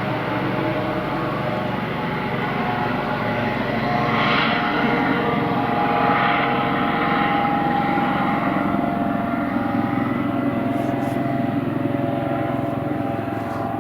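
Eurocopter AS365 Dauphin rescue helicopter running: its turbine engines and rotors make a steady noise with a whining tone over it, growing a little louder about midway.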